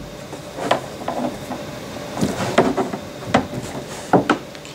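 Hands pressing a ball of Play-Doh down onto its dough feet on a tabletop: several soft knocks on the table with rubbing and handling noise between them.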